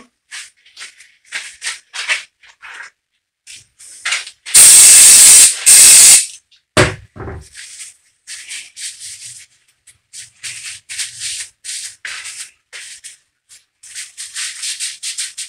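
Two loud hissing bursts of an aerosol cleaner spray about four to six seconds in, followed by a couple of short knocks. Around them a cloth rubs in short strokes over a steel-backed engine main bearing shell as it is wiped clean.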